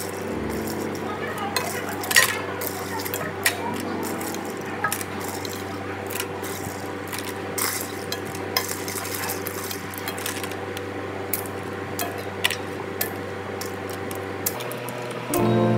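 Metal serving utensils clinking and tapping lightly against a metal plate as vegetables are plated, in scattered small clicks over a steady background hum. Music comes in just before the end.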